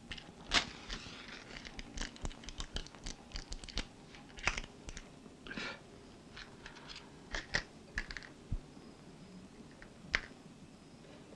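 Quiet handling sounds from a woman at a home altar: scattered small clicks, taps and rustles, with one slightly longer scrape about halfway through.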